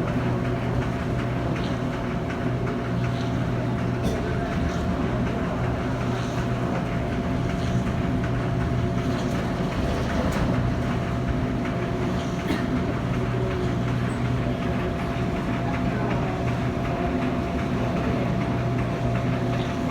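Airport terminal tram (people mover) running along its track, heard from inside the car: a steady rumble with a constant motor hum and a faint high whine.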